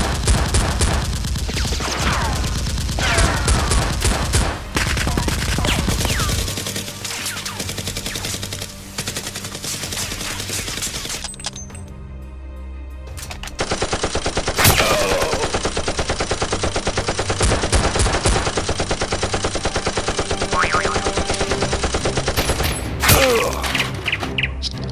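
Rapid bursts of automatic gunfire, dubbed in as action-film sound effects for Nerf blasters, over background music. The firing is dense for about the first half, drops out briefly about halfway, then starts again.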